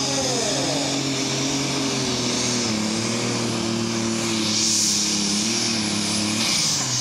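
Super Stock pulling tractor's turbocharged diesel engine running hard under load during a pull, with a high turbo hiss over the engine note; the engine note drops in pitch near the end.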